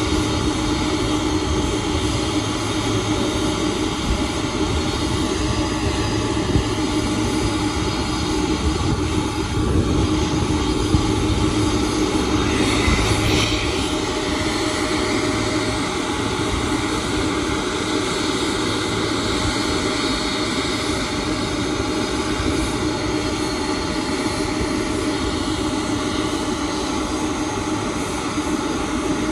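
Boeing 747-400 Dreamlifter's four Pratt & Whitney PW4062 turbofan engines running at taxi power: a steady jet rumble with several held tones over a rushing noise, brightening briefly about halfway through.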